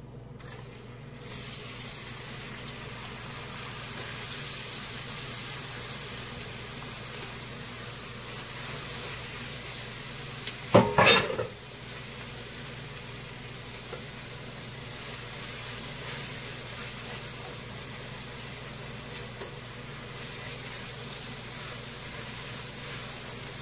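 Grated onion sizzling as it fries in hot olive oil in a frying pan, stirred with a spatula. The sizzle comes up about a second in, as the onion goes into the oil, and holds steady. About halfway through there is a brief, loud clatter.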